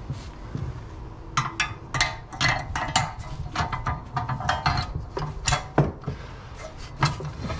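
Metal clinking and clattering as a steel coil spring is slid over a coilover strut and handled against it: a quick irregular run of sharp clicks and knocks, some ringing briefly, starting about a second and a half in.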